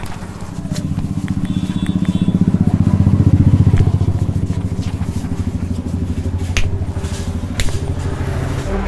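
A motor running with a fast low pulse, swelling to its loudest about three to four seconds in and then easing off, with a few sharp clicks in the second half.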